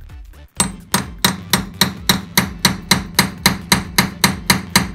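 A hammer tapping a steel punch set in the loose oil drain tube of a Ural motorcycle engine, about sixteen quick, even metallic blows at three to four a second, starting about half a second in: flaring the tube to tighten its weak fit in the bore.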